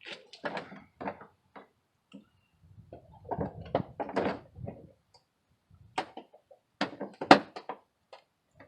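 Irregular knocks, clunks and rattles of a plastic rocker panel trim piece being pushed and worked into place against a car's body, with a low rumble mixed in for a second or two in the middle.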